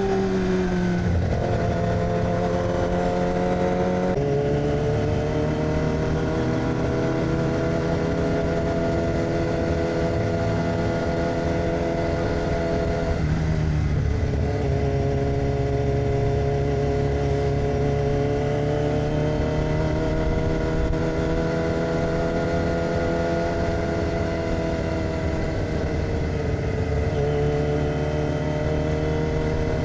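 2006 Yamaha R6's inline-four engine through an AR aftermarket exhaust, running steadily at moderate revs while riding. The note breaks and drops briefly about four seconds in and again near the middle, then climbs slowly, with another change near the end.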